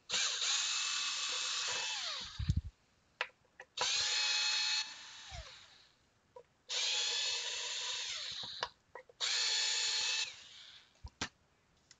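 Cordless drill/driver backing the screws out of an aluminium engine-computer (PCM) case, running in four separate bursts of a second or two each. Its whine drops in pitch as the motor spins down at the end of each burst, with small clicks between the bursts.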